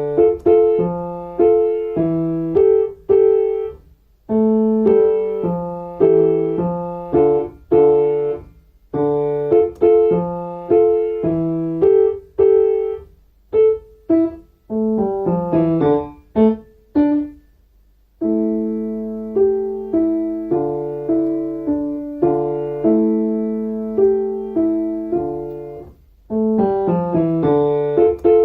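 Piano playing a short beginner piece, detached chords and melody notes each struck and fading. It pauses briefly about two-thirds of the way through, then goes on with longer held notes.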